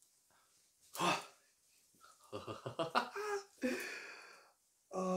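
A man laughing and making excited wordless vocal sounds: a short exclamation about a second in, then a run of quick laughing pulses, ending on a held hum.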